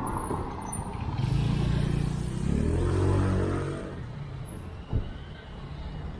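A motor vehicle passing on the street, its engine note rising as it accelerates, then fading away. A single sharp click comes about five seconds in.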